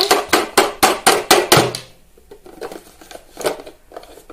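A thin clear plastic toy-car container being handled, with a quick run of sharp plastic clacks and crinkles about four a second, dying down to a few faint clicks after about two seconds.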